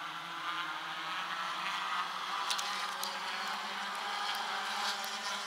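A pack of four-cylinder compact race cars running laps on an oval track, their engines blending into a steady drone.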